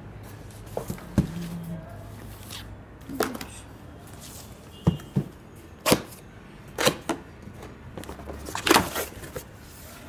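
Cardboard carton being opened by hand: a series of sharp knocks and scrapes of the cardboard lid and flaps, the loudest from about five to nine seconds in.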